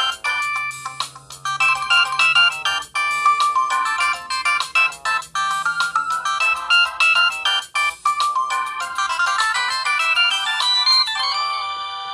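A Samsung Gravity 2 (SGH-T469) ringtone playing: a fast melody of short synthesized notes that settles into a held chord near the end.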